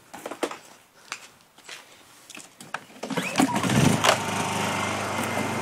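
A few scattered clicks, then about three seconds in a portable generator's small engine starts up and settles into a steady run.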